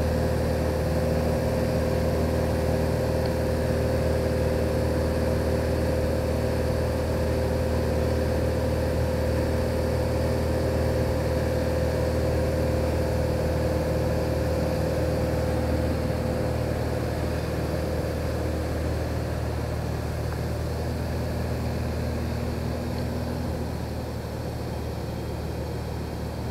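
Steady drone of a Cessna 182G Skylane's six-cylinder Continental O-470 engine and propeller in cruise flight, heard inside the cockpit. It eases slightly quieter in the second half.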